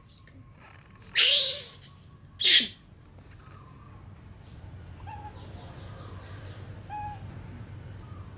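Two loud breathy shushes about a second apart, then a steady low hum with a few faint, short high coo calls from baby macaques.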